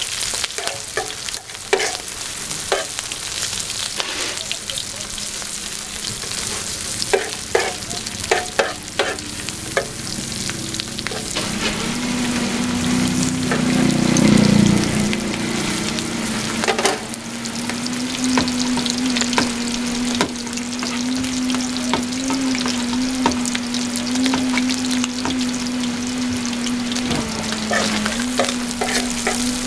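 Ham, sausage, beef and onions sizzling in oil on a flat steel griddle, with metal tongs clicking and scraping against the griddle as the food is turned. A steady low hum joins about halfway through.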